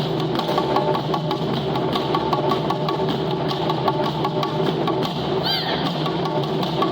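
Japanese taiko drumming with quick, regular wood-like clicking strikes, over sustained tones. A short high rising-and-falling call cuts through about five and a half seconds in.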